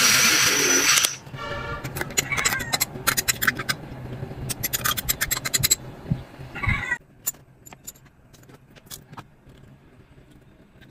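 Handheld battery milk frother whirring as it whips dalgona coffee foam, stopping about a second in. Then a run of spoon scrapes and clinks as the thick foam is scooped onto a glass, fading to a few faint clicks.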